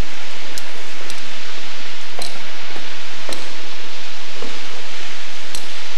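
Steady rushing hiss of running water echoing through the tunnel, with a few faint clicks scattered through it.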